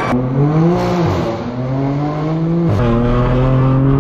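Straight-piped BMW M4 F82's twin-turbo inline-six, with an AWE Track exhaust, pulling hard under acceleration. The engine note climbs, dips briefly and climbs again, then drops sharply at an upshift about three-quarters of the way through and climbs on steadily.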